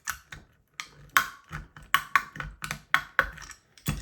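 Tools and small metal hard-drive parts clicking and knocking together in an irregular run of sharp taps, as the head assembly is worked apart to get the magnet out.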